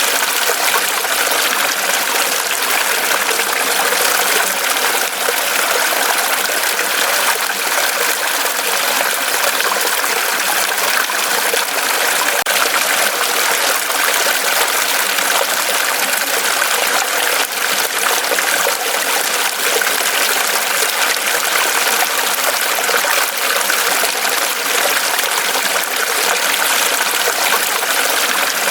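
Mountain stream running over rocks: a steady, even rush of flowing water with fine splashing and trickling.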